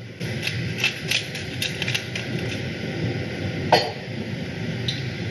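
Hand pepper mill being twisted, a rapid crackling run of small clicks for about two seconds as peppercorns are ground, then a single knock a little later.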